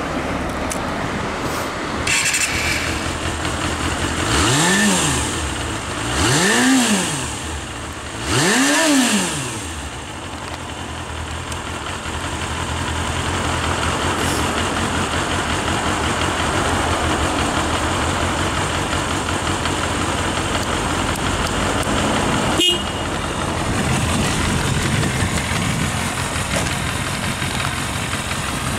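Kawasaki Balius-II's 250cc inline-four engine idling through its stock exhaust. It is blipped three times, about four, six and eight seconds in, its pitch rising and falling each time before it settles back to a steady idle. A single sharp click about two-thirds of the way through.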